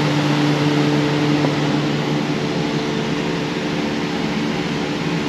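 Steady hum and rush of a large building's air-handling system, a few low steady tones under an even whoosh.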